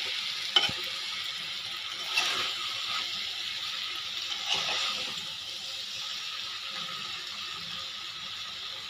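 Diced pumpkin sizzling in a pan as it is stirred with a spatula: a steady frying hiss with a few scraping strokes, and a sharp knock of the spatula against the pan about half a second in.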